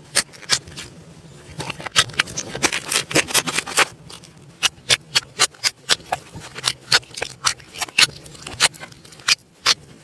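Slime being worked, giving an irregular run of sharp clicks and pops, several a second.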